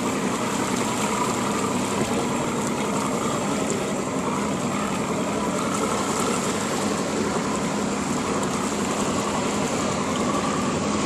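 A boat engine running at a steady idle, with a constant rush of wind and water.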